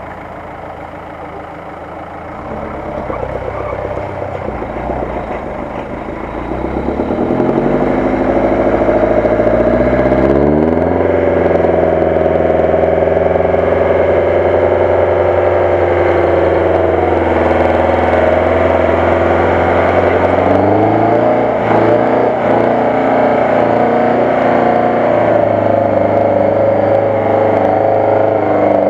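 UAZ-469 jeep's engine revving hard under load as it climbs a steep ravine bank on a winch cable. The revs rise about seven seconds in, hold high, dip slightly and climb again about twenty-one seconds in.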